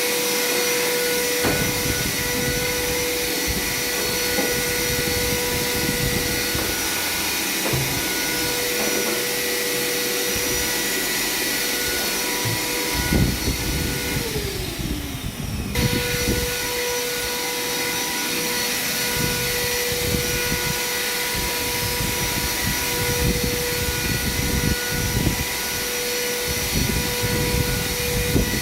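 A high-speed electric power tool motor running steadily at a constant whine, with irregular rougher noise from the work underneath. About halfway through it spins down with a falling pitch, then starts up again about a second later and runs on.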